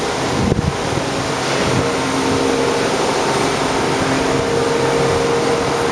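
Machinery in a rail car maintenance shop running as a steady noisy drone, with a low hum joining about two seconds in.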